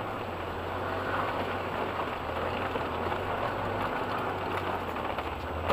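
Off-road SUV's engine running steadily at low revs, heard from inside the cabin while the vehicle crawls along a muddy rutted track, under a steady wet hiss.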